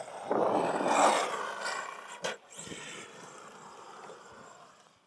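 Losi DBXL-E 2.0 electric RC buggy driving fast over a dirt track: motor and drivetrain whining, with tyres churning dirt. It is loudest about a second in, gives a sharp knock a little after two seconds, then fades as it drives away.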